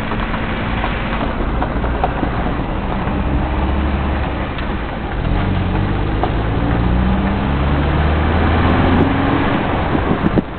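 Car engine and road noise heard from inside the moving car. The engine note climbs in steps as the car picks up speed, over a steady rush of tyre and wind noise.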